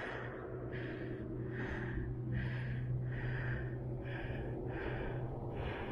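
A cyclist's heavy, rhythmic breathing while pedalling: about seven breaths, a little more than one a second, over a steady low hum.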